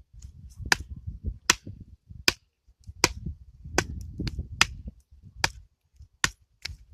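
Hatchet chopping firewood: about nine sharp strikes on wood at a steady pace, roughly one every 0.8 seconds.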